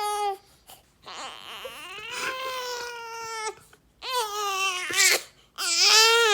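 17-day-old newborn baby crying: a short cry, then three long cries with short pauses for breath between them.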